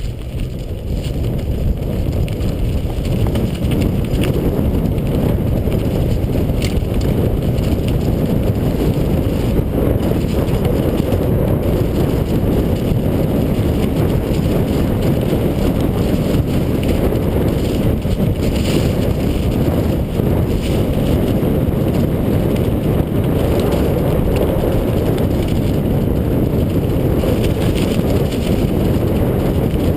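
Steady rush of wind buffeting the microphone, with rolling and rattling noise from riding along a trail.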